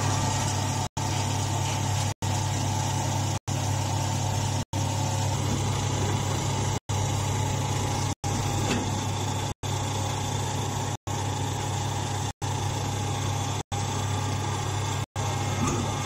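Hydraulic power unit of a straw compression baler, its electric motor and pump running with a steady low hum. The hum is broken by short gaps of silence about every second and a half.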